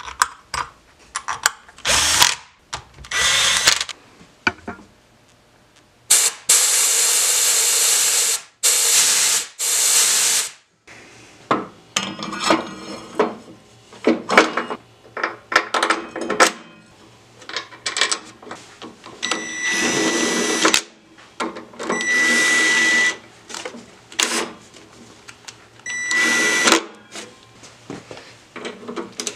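Cordless power driver running in the mounting bolts of a Harley-Davidson four-piston front brake caliper. Two long runs of several seconds come first, then shorter bursts with a steady whine in the second half, with metal clicks of bolts and tools in between.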